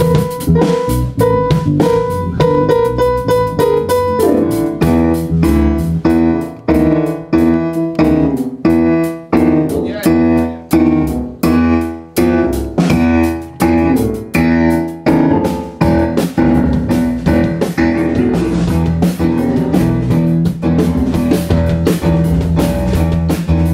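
Rock band playing loudly in rehearsal: drum kit and electric guitar together, the part changing to a new chord pattern about four seconds in.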